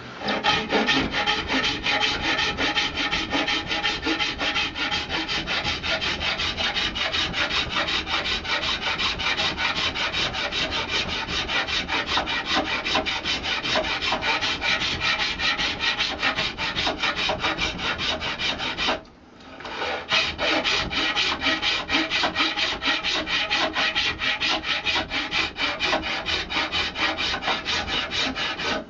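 Hand file rasping back and forth over a buffalo horn walking-stick handle in quick, even strokes, taking the horn down level where gaps still show. The filing stops briefly about two-thirds of the way through, then carries on.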